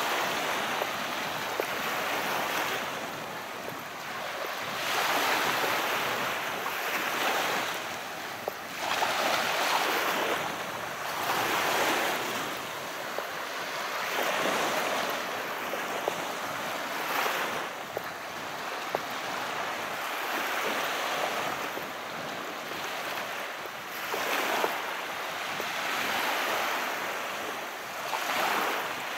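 Calm sea waves washing onto a shore, one swell of hiss rising and falling every few seconds, with a few small sharp ticks.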